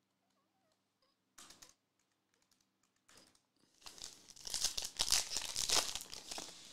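Foil trading-card pack being torn open by hand: a couple of short rustles, then a few seconds of dense crinkling and tearing of the foil wrapper starting about four seconds in.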